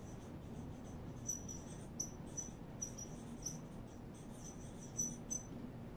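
Felt-tip marker squeaking on a whiteboard as words are written: a run of short, high squeaks, one per pen stroke, coming irregularly.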